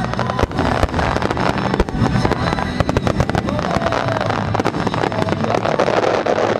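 Aerial firework shells bursting in a dense finale barrage: booms and crackling follow one another several times a second, overlapping with no break.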